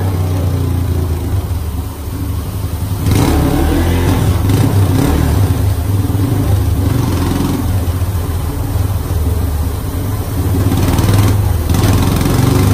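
Yamaha TT-R230's air-cooled single-cylinder four-stroke engine running under load on a roller dynamometer during a power test. The engine note opens up and gets louder about three seconds in, breaks off briefly near the end, then picks up again.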